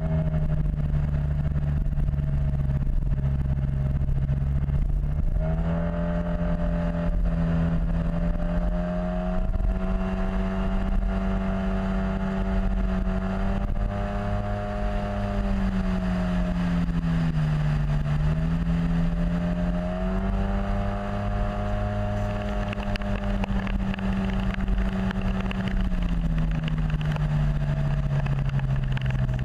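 Yamaha T-Max XP500 scooter's 500 cc parallel-twin engine running under way. The engine note rises about five seconds in, wavers, sags and recovers a little past halfway, and falls back near the end, over a steady low rumble.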